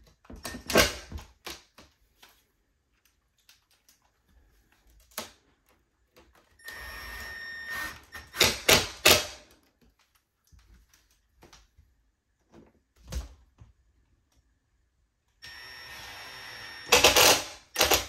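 Cordless drill/driver driving screws through a wooden shelf into window trim: two short steady runs of the motor, each about a second long, around 7 s and 16 s in, each followed by a quick run of sharp clicks, with another run of clicks right at the start.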